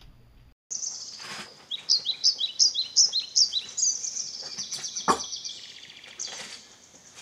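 Birds chirping: a run of quick down-slurred high chirps, about three a second, then a steady high trill. There is a single sharp knock about five seconds in.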